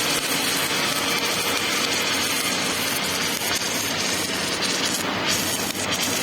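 Automatic welding machine running: a steady, unbroken noise with a faint hum underneath.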